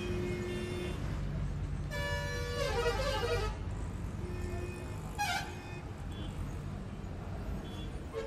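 Street traffic rumble with a vehicle horn sounding for about a second and a half, about two seconds in, its pitch wavering in the second half; a shorter high sound follows about five seconds in.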